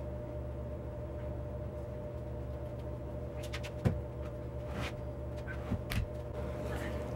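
Steady background hum of a workshop, with a few light knocks about four seconds in as a concrete casting is set down on a wooden worktable, then a few footsteps.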